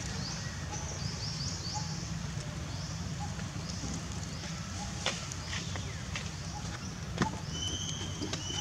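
Outdoor ambience: runs of short, high rising chirps over a steady low rumble, with two sharp clicks about five and seven seconds in.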